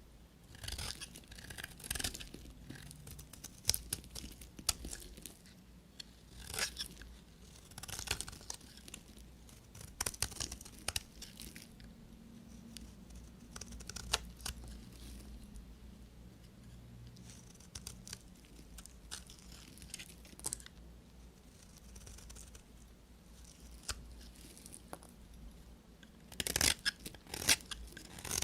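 Bars of soap being cut with a knife: short runs of crisp, crunchy cuts and scrapes every second or two, busiest near the end.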